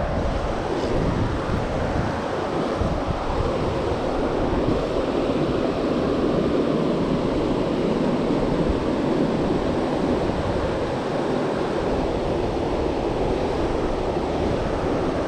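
Steady rush of the Tongariro River's fast current flowing over a rocky riverbed, with wind buffeting the microphone.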